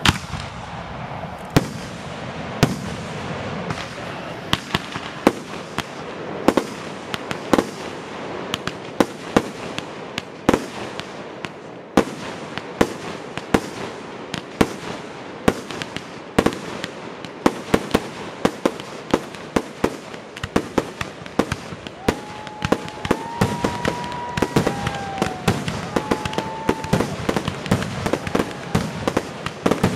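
Fireworks display: a rapid string of sharp bangs and crackles from aerial shells bursting, coming faster toward the end. A few whistling tones sound about two-thirds of the way through.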